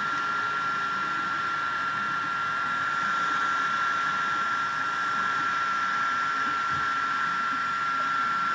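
A small motor whirring steadily, with a constant high whine over an even rushing noise.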